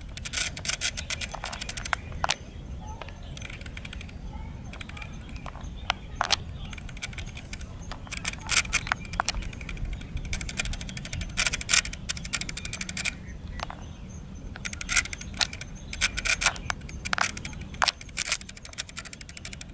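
Intermittent bursts of close crackling and rustling over a low steady background rumble.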